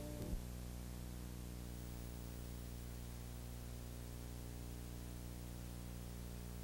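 The closing music cuts off just after the start, leaving a steady low electrical hum with a buzz of many even overtones.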